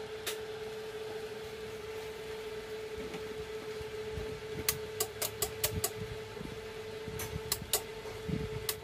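Automatic voltage stabilizer humming steadily at one pitch, with sharp clicks: one just after the start and a quick run of them in the second half.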